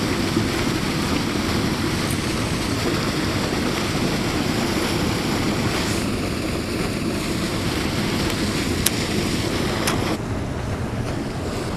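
Floodwater rushing and churning through a swollen spillway creek: a steady, loud roar of running water.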